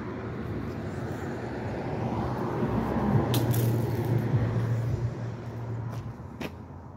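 A car driving past, its engine and tyre noise growing louder to a peak about halfway through, then fading away.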